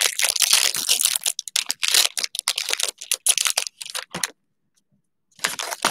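Foil trading-card pack wrapper crinkling and rustling as the pack is torn open and the cards slid out. The crinkling stops about four seconds in, and a short burst comes near the end.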